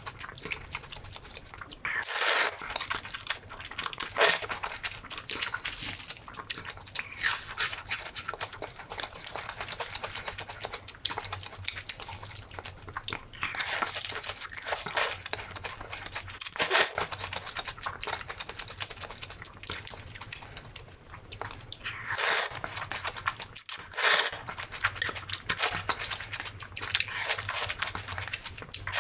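Close-miked eating: noodles slurped in with chopsticks and chewed wetly, a steady run of smacking mouth clicks broken by several louder slurps.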